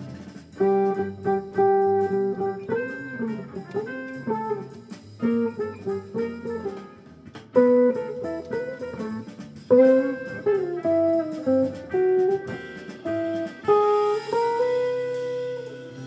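Semi-hollow electric guitar played clean in a jazz style, mixing picked chords and single-note lines, with a few longer held notes near the end.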